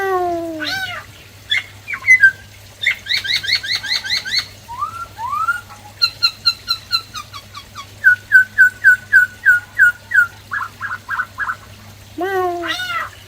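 Black-throated laughingthrush singing a varied whistled song. It moves between long falling whistles, quick runs of short repeated notes, and a series of downslurred notes about four a second. A faint steady hum lies underneath.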